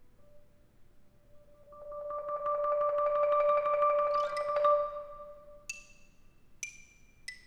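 Marimba roll: rapid mallet strokes on a held note that swell up and then fade away. About two-thirds of the way in, three separate high, ringing mallet strikes follow on another percussion instrument.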